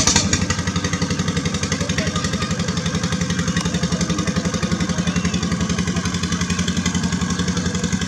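A small engine running steadily close by, with an even, rapid chugging pulse.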